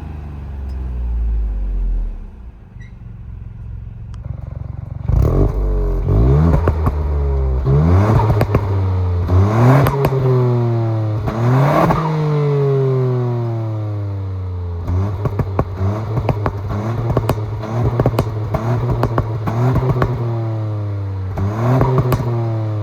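Ford Puma ST's turbocharged 1.5-litre three-cylinder EcoBoost engine, on a Stage 1 remap with an aftermarket intake and stock exhaust, revved hard again and again. The revs climb quickly and fall away slowly, with crackles as they drop. The engine settles lower for the first few seconds, then is revved about seven or eight times, the later blips shorter and closer together.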